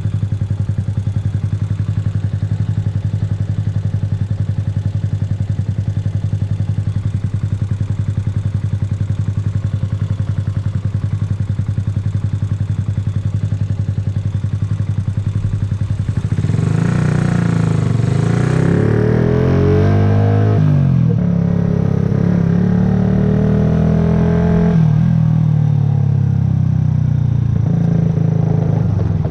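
Yamaha YZF-R125's single-cylinder four-stroke engine idling steadily, then about two-thirds of the way in revving up as the bike pulls away, its pitch rising and dropping several times, before settling back to a steady note near the end.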